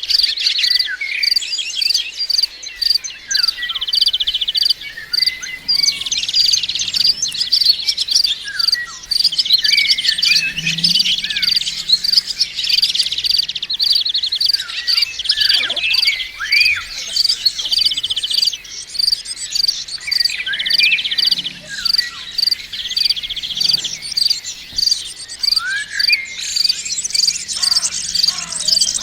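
Small songbirds, wild Javan white-eyes (pleci), chirping and trilling busily, with repeated short trill phrases and quick rising and falling chirps. A steady, evenly paced high ticking runs underneath.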